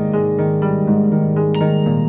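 Background music: held chords, with a bright new note coming in about one and a half seconds in.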